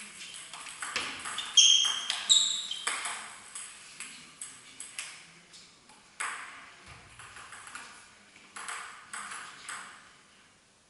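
Table tennis rally: the ball clicking off the rackets and bouncing on the table in quick succession, with two bright pings about two seconds in. The hits thin out and fade near the end.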